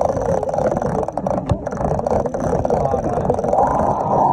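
Spinning reel's drag buzzing in a rapid, steady ratchet as a hooked carp pulls line off the spool. It swells near the end.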